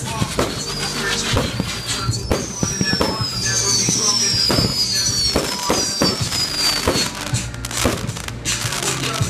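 Fireworks going off: repeated bangs and crackles, with several whistles falling in pitch in the middle. Music plays underneath.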